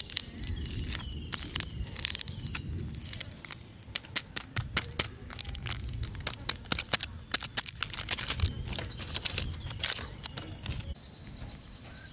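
Foil Maggi masala seasoning sachets being crinkled and squeezed as the powder is shaken out into a steel bowl: a dense run of sharp, crisp crinkles that thins out near the end. Birds chirp faintly in the background.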